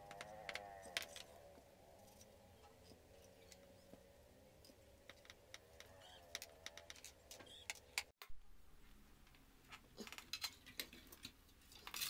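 Faint, scattered clicks and rattles of wires, plastic connectors and the sheet-metal case of an inverter welding machine being handled as it is taken apart, with a denser run of clicks near the end.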